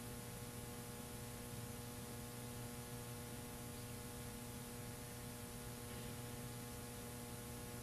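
Faint steady electrical mains hum with hiss, from the microphone or recording chain, before the call to prayer begins; no voice.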